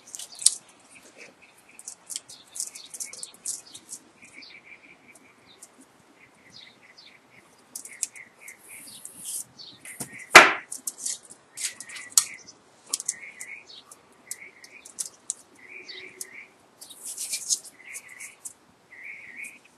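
Scratchy clicks and rustles of copper magnet wire being worked by hand into the slots of a motor stator during a rewind, with one sharp knock about ten seconds in. Short chirps repeat through the second half.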